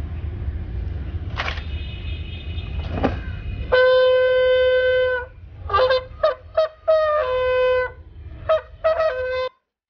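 A bugle call played on a single bugle: a long held note, a quick run of short notes, another long note that drops slightly in pitch, then a few more short notes before the sound cuts off suddenly. For the first few seconds, before the bugle starts, there is only a low steady outdoor rumble with three brief sharp sounds.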